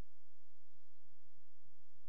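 Silent soundtrack with no game audio: only a steady low electrical hum and faint hiss.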